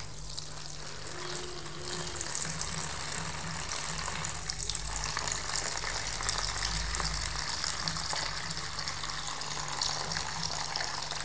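Water poured in a steady stream from a stainless steel jug into a plastic tub, splashing and bubbling onto a smartphone lying in the bottom.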